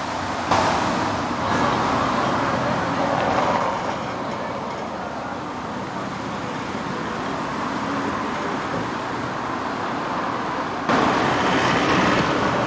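Steady road traffic noise with no clear single vehicle, growing abruptly louder about half a second in and again near the end.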